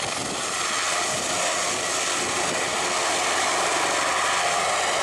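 Large military transport helicopter flying low, its rotor and turbine noise steady and even.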